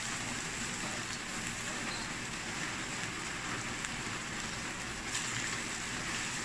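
Cooked rice sizzling steadily in hot oil in a stainless steel pan. A metal spoon begins stirring and scraping the pan near the end, with a few light clicks.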